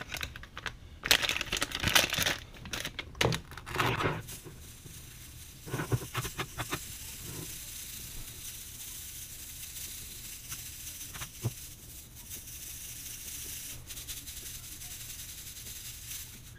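Dry gold paydirt is poured from a bag into a stainless-steel mesh kitchen strainer, with the bag crinkling and gravel rattling loudly for the first four seconds or so. The strainer is then shaken over a gold pan to classify the dirt: a soft steady hiss of fine material sifting through the mesh, with a few scattered clicks of pebbles.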